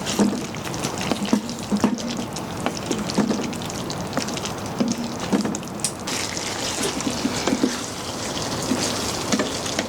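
A pot of pelmeni in thick cream sauce bubbling as it simmers: irregular soft plops, one every half second to a second, over a steady hiss.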